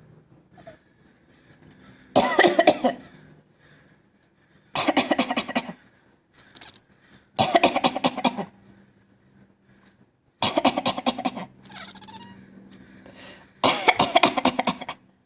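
Siberian cat coughing in five bouts a couple of seconds apart, each about a second of rapid hacks.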